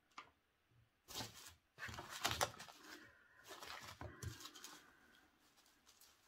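Hands rummaging through a box of cosmetics: several short spells of rustling and handling noise, with a few light clicks and knocks from plastic packaging.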